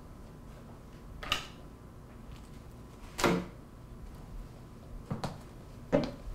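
A few short knocks and thumps a second or two apart, the loudest near the end, from a person moving about a room: a door and the handling of a leather shoulder bag.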